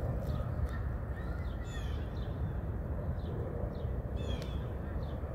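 Birds chirping repeatedly in short, high, downward-sliding calls, over a steady low rumble.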